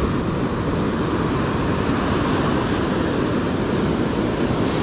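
Ocean surf breaking and washing up a sandy beach, a steady rush of water noise, with wind on the microphone.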